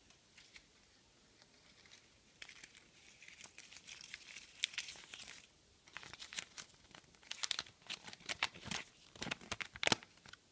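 Folded paper Kinder Surprise instruction leaflet being unfolded by hand: crisp crinkling and rustling in two spells, starting a couple of seconds in.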